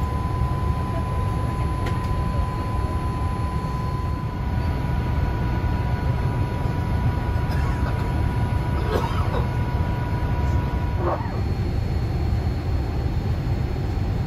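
Steady cabin noise inside a Boeing 787-8 airliner on descent: a low rumble of airflow and engines, with a thin high whine that stops about ten seconds in.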